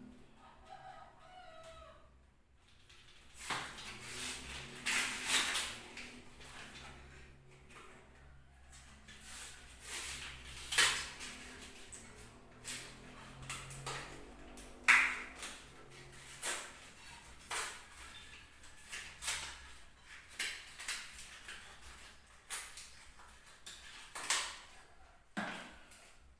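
Irregular clicks, knocks and rustles from handling packaging and parts, about one sharp sound a second with a few louder knocks.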